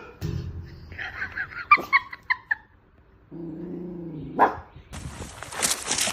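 A dog yipping and whimpering in a quick run of short high cries, then a low drawn-out sound and a rough, noisy stretch near the end.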